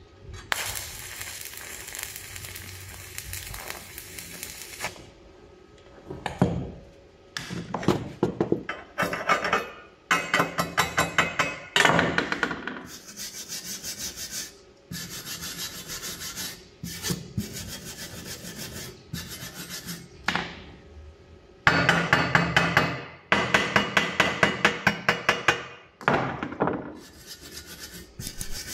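Stick-welding arc crackling steadily for about four seconds at the start. Then a hand wire brush scrubs back and forth over the fresh welds on the steel frame to clear the slag, in runs of quick strokes, about five a second, with short pauses between runs.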